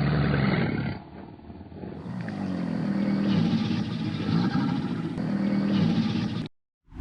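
An animal's deep, pulsing calls, heard in two separate recordings: the first stops about a second in, the second starts about two seconds in and cuts off shortly before the end.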